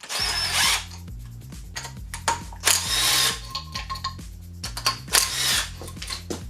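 A power tool runs in three short bursts, at the start, about three seconds in and about five seconds in, with small clicks between them. Background music with a bassline plays underneath.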